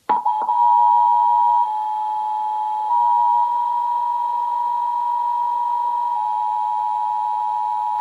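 Emergency Alert System two-tone attention signal: two pitches sounding together, steady and unbroken, played through a television's speaker. It marks an Emergency Action Notification interrupting the broadcast.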